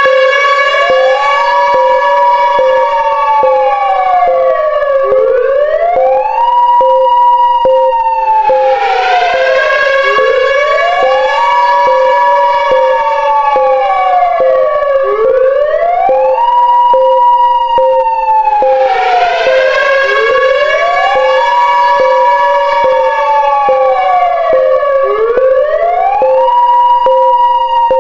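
Civil-defence air-raid siren wailing as an attack warning: a tone that climbs and then falls back about every five seconds, over a steady tone and a second, slower wail that repeats about every ten seconds.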